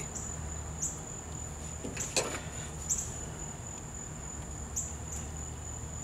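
Steady high-pitched background trill that swells briefly every second or so, with a steady low hum beneath it and a faint click about two seconds in.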